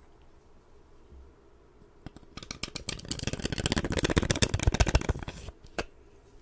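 Fingers rapidly scratching and rubbing a textured knife sheath close to the microphone. After a couple of seconds of a few soft clicks, the scratching starts and runs for about three seconds before stopping.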